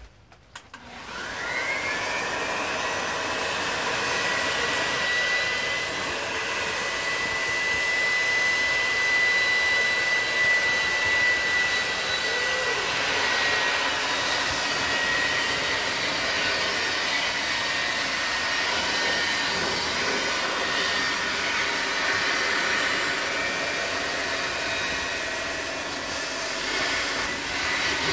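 Electric air pump switching on about a second in, its whine rising to a steady high note over a steady rush of air, inflating an inflatable Lay-Z-Spa hot tub.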